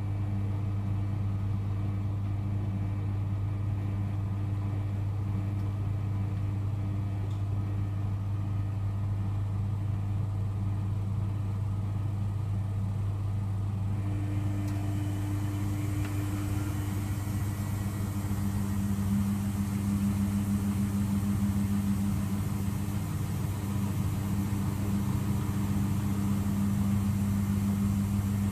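Zanussi IZ washing machine running on a cottons wash: a steady low motor hum, growing a little louder about eighteen seconds in.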